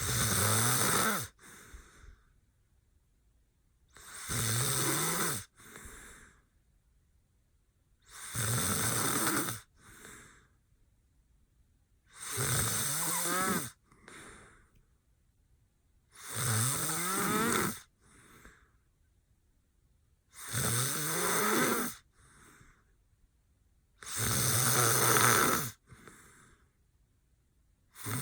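Man snoring hard in deep sleep: a loud snore about every four seconds, each lasting about a second and a half and followed by a shorter, softer one.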